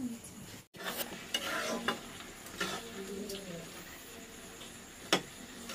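Food sizzling in a metal frying pan over a wood fire while a utensil stirs and scrapes it round the pan, with a sharp metal clink near the end. A brief silent gap comes just after the start.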